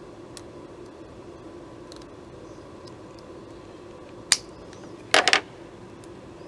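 Scissors snipping through a thin wire of a console cable with one sharp click, then a short double clatter about a second later as the scissors are put down on the table.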